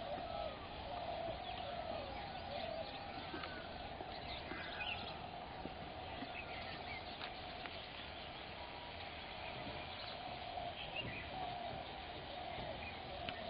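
Wild birds chirping and calling without a break, a wavering chatter with scattered higher chirps over it.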